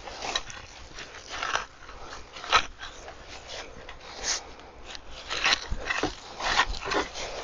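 Dry leaves crunching and rustling as a long-handled garden tool is stabbed down into a wooden compost bin, in irregular strokes about once a second, chopping up the heap.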